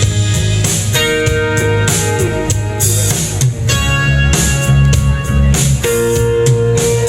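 Instrumental break in a country song: a band's guitars playing sustained chords over bass, with a steady beat, and no singing.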